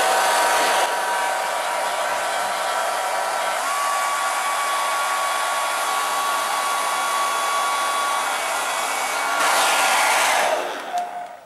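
Handheld hairdryer blowing hot air onto a sticker to soften its glue, running steadily with a whine in its hiss. It gets louder for about a second near the end, then is switched off and winds down.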